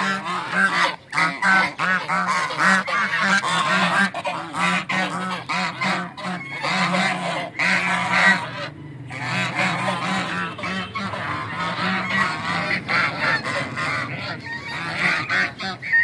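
A flock of domestic geese honking and cackling, many calls overlapping almost without pause, with a brief lull about nine seconds in.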